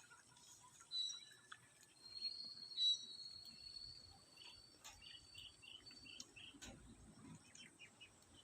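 Faint birdsong and insect sounds: a high, thin note held for several seconds from about a second in, then a quick run of short chirps.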